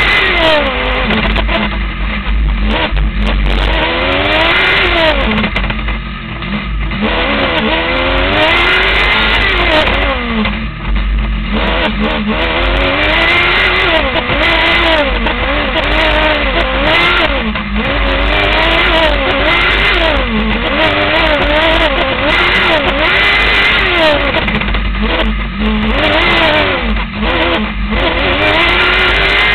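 Formula SAE race car's engine at close range, revving up and down over and over as the car accelerates and brakes around an autocross course. The pitch climbs on each straight and drops sharply at each braking point, about five times, over a steady low rumble.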